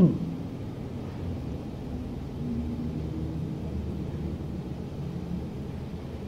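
Steady low rumble with faint hum and hiss: the background noise of an old 1970s tape recording of a lecture hall. A short, loud voice-like sound falls in pitch right at the start.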